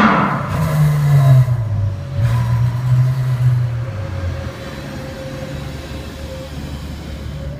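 Ferrari FF's V12 engine running at low revs as the car creeps forward, with two light rises in revs in the first few seconds before it settles to a steady, quieter idle.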